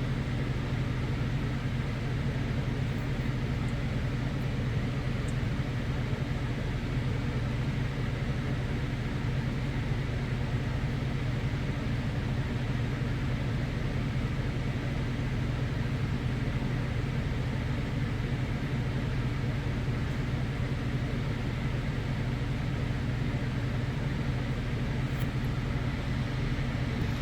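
Steady, unchanging low mechanical hum with a faint hiss above it, like a running machine, with no distinct events.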